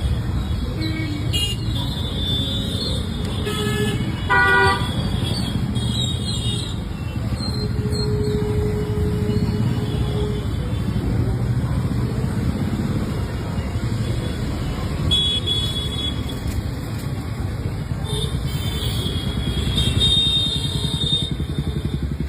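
Royal Enfield single-cylinder motorcycle engine running steadily through its silencer, with a brief vehicle horn toot about four seconds in.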